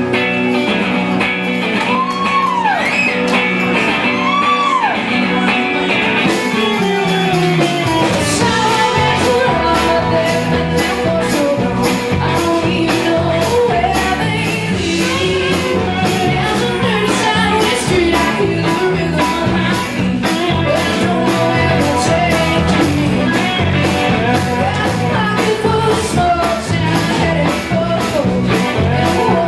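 Live rock band playing. Guitars open with sliding, bending notes, then about eight seconds in the drums and bass come in with a steady beat and a woman sings over the band.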